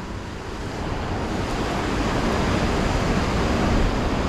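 Sea surf breaking and churning against coastal rocks, a steady rushing noise that swells a little over the first second.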